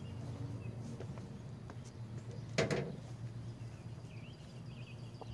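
Quiet outdoor background of faint bird chirps over a steady low hum, with one short, louder thump about two and a half seconds in.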